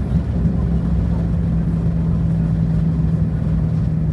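Airbus A320 cabin noise: a steady, loud low rumble from the engines and airflow, with a constant low hum setting in about half a second in.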